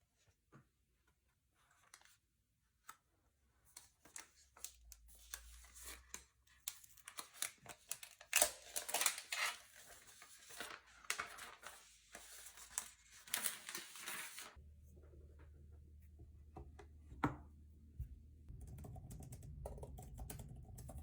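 Packaging of an Apple Magic Keyboard for iPad being torn open and unwrapped: paper and plastic rustling and tearing with many sharp clicks and taps, starting a few seconds in and stopping about two-thirds of the way through. After that, only sparse handling clicks over a low hum.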